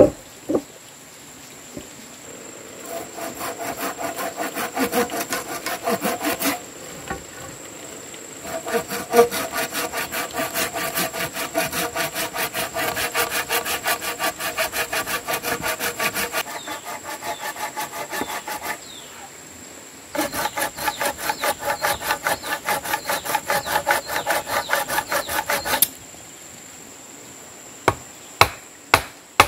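Handsaw cutting through a squared wooden timber in quick back-and-forth strokes, about three or four a second, in three runs with short pauses between them. Near the end, a wooden mallet strikes a chisel in the wood with four sharp knocks.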